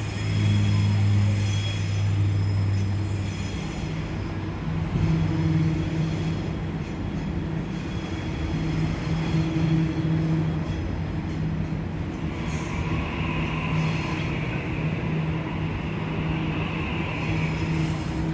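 Electric suburban train moving at a station platform, a steady low motor hum under the running noise, with wheels squealing for several seconds in the second half.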